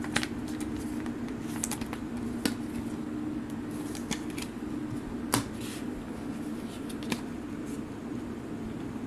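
Trading cards and a rigid plastic top loader being handled. A card is slid into the top loader, then cards are thumbed through a stack, giving light clicks and rustles. The loudest is a sharp click a little over five seconds in, heard over a steady low hum.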